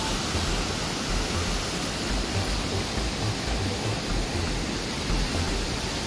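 Mountain creek waterfall cascading over boulders: a steady, even rush of falling water.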